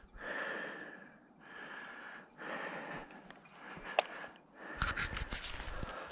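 Heavy breathing close to the microphone, about one breath a second, with a single sharp click about four seconds in. From about five seconds in, footsteps and rustling through dry undergrowth.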